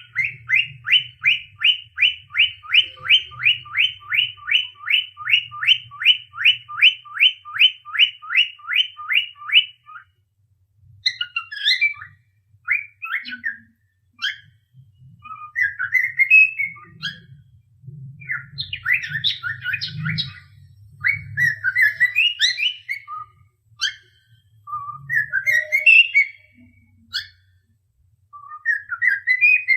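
Cockatiel calling: a quick, even run of short rising chirps, about three a second, for some ten seconds, then a broken series of chirps and warbling whistles.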